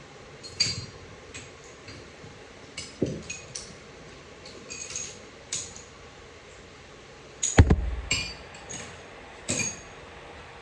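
Metal clinks and knocks of transmission parts and hand tools being handled during a teardown, a dozen or so scattered sharp ringing taps, with one heavy clunk about three-quarters of the way through.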